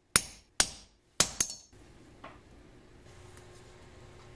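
Hammer blows crimping a lug onto a heavy wiring cable: four sharp strikes within about a second and a half, the last two close together, then a faint steady hum and one more strike at the very end.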